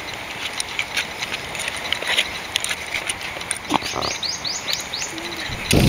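Light scattered clicks and taps of boiled snail shells and a thin metal wire as the meat is picked out. About four seconds in a bird gives a quick run of about five short rising chirps. Just before the end a loud rush of pouring water cuts in.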